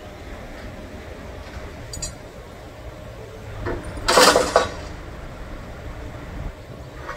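Low steady rumble of idling engines and traffic, with a loud half-second of metallic clinking and rattling about four seconds in, from a tow-truck chain and hook being handled at the front of a crashed car.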